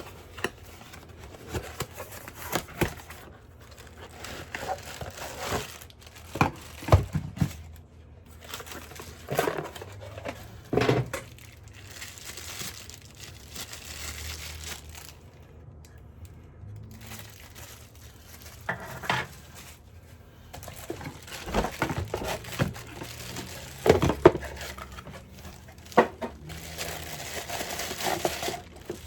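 Packaging being crinkled and torn open by hand, in stretches of rustling, with a few sharp knocks as items are handled.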